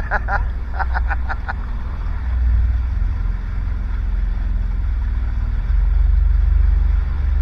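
Jet ski engine running under way, buried in heavy wind rumble on the microphone; the rumble grows louder about six seconds in.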